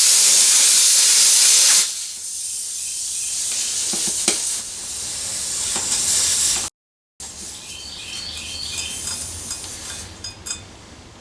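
Air hissing at the open valve stem of an inner-tubed motorcycle tyre, with the valve core out after the bead has been seated. It is loud for about two seconds, then weaker and slowly growing until it cuts off about seven seconds in. Small clicks follow.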